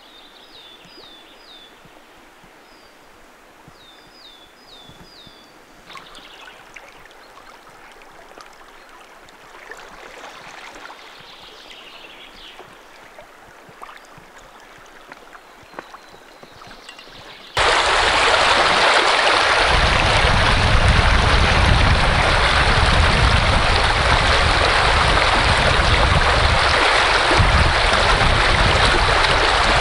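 Small birds calling faintly in short, quickly repeated downward chirps. A little over halfway in, it cuts abruptly to the loud, steady rush of a flowing river.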